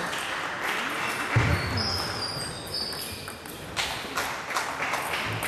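Table tennis balls clicking off tables and bats from the games around, echoing in a large sports hall, with a heavy low thump about a second and a half in and faint voices.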